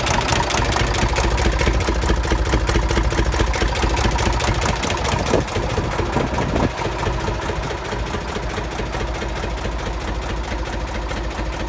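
Deutz A65 tractor's air-cooled diesel engine running steadily, with an even firing beat. It drops slightly in level about two-thirds of the way through.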